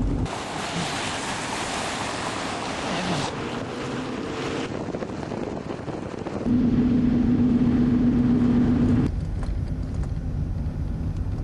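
Car driving noise: road and wind noise, with a loud rushing hiss for the first few seconds, then a steady low drone with a hum in the middle, changing abruptly several times.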